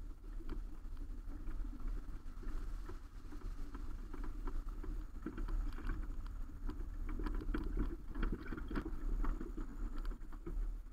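Subaru Baja driving slowly over a rough dirt and gravel track, heard through a camera mounted on the roof rack: a steady low rumble with many short knocks and rattles, thickest in the second half.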